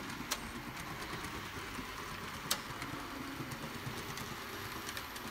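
HO scale model train, a Bachmann Atlantic Coast Line Decapod steam locomotive pulling freight cars, running along the track: a steady whir and rumble of motor and wheels on rail, with two sharp clicks, the louder one about two and a half seconds in.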